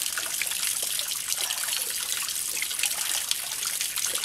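Spring water running from a wooden spout at a forest well, trickling and splashing steadily into the pool below.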